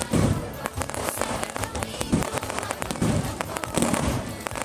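Large bonfire crackling and popping fast and densely, with a few deeper thuds among the cracks.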